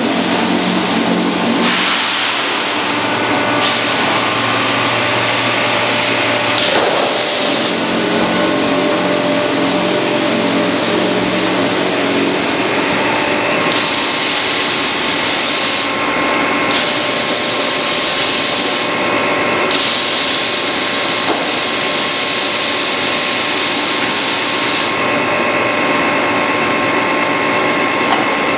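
Machinery on a grinding-ball production line running with a steady loud roar and hum. A high hiss cuts in and out abruptly every few seconds.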